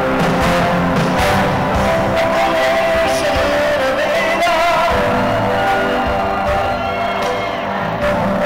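Live band music with a male lead singer, played at full volume in a concert hall.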